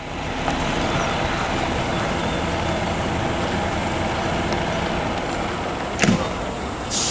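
Engine of a small tourist road train's tractor unit running as the train drives slowly along a gravel path, with a sharp knock about six seconds in.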